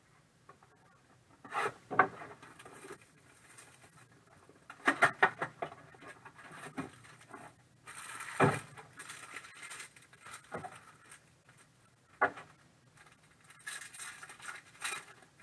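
Hands handling trading cards and foil card packs on a tabletop: scattered taps, slides and rustles of cards being set down and picked up. Near the end comes a denser crinkling as a foil pack wrapper is torn open.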